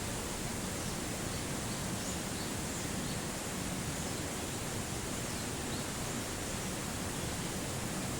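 Steady outdoor ambient noise with a few faint, short, high chirps over it.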